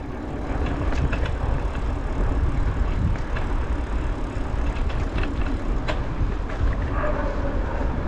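Steady rushing noise of a bicycle ride on a city street: wind on the microphone and tyres rolling on rough asphalt. A few sharp clicks or rattles are heard, the clearest about six seconds in.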